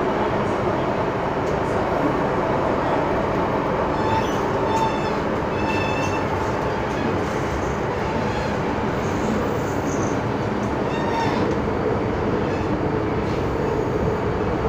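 Hong Kong MTR M-Train electric metro train running through a tunnel, heard from inside the passenger car: a steady, even rumble of motors and wheels on the track.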